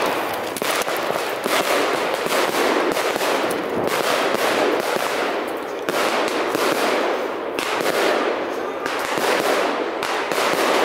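Pyrotechnics going off in a rapid, continuous run of irregular crackling pops and bangs.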